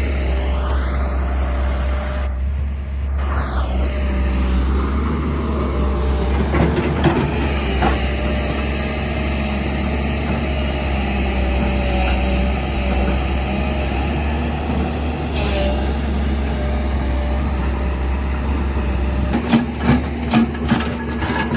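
Diesel engine of heavy construction machinery running steadily, with a few short knocks near the end.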